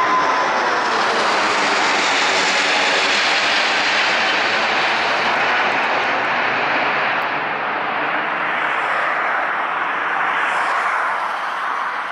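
Four-engined Emirates Airbus A380 jet climbing away overhead at high thrust: a loud, dense jet roar with a thin whine at the start, easing slightly in the second half as it passes.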